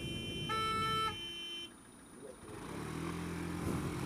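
Car horns honking in traffic: one steady horn is held for about two and a half seconds, and a second, louder horn is blown briefly over it about half a second in. Near the end, a motor scooter's engine picks up as it pulls away.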